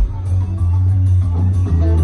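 Punk rock band playing live through the PA: electric guitars, a heavy bass line and drums, with a drum hit right at the start and cymbals keeping the beat.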